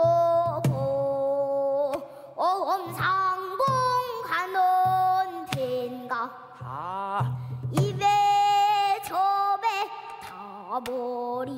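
A young girl singing a pansori danga in a strong, bending voice, holding long notes whose pitch wavers and slides. She is accompanied by strokes on a buk barrel drum.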